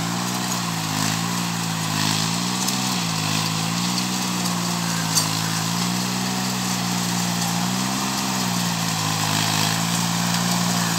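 Compact tractor engine running steadily as the tractor works over rough ground, its pitch wavering gently up and down every second or two. A single sharp click sounds about five seconds in.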